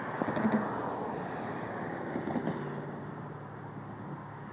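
Rumble of a slow-moving freight train on the rails, with a few light metallic clanks about half a second in and again after two seconds, slowly fading.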